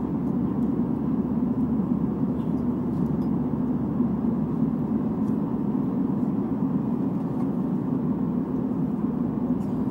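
Steady cabin noise of an Airbus A320 in flight: an even, low rumble of engines and airflow around the fuselage. Faint rustles of catalogue pages being turned sit on top of it.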